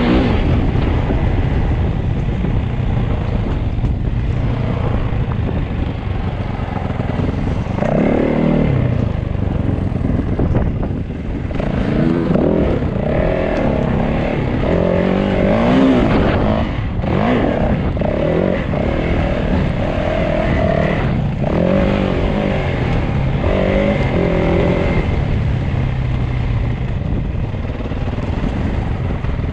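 Enduro motorcycle engine running while ridden, its pitch rising and falling over and over as the throttle is opened and closed.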